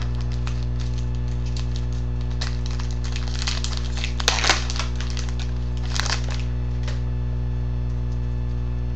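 Trading card pack wrapper crinkling and crackling as it is handled and torn open, with cards rustling. Loudest around four to five seconds in, with a smaller flurry near six seconds, over a steady electrical hum.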